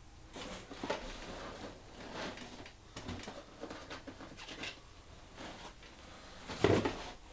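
Items and packaging being handled and unpacked from a box: a run of irregular rustles and light knocks, with one louder knock near the end.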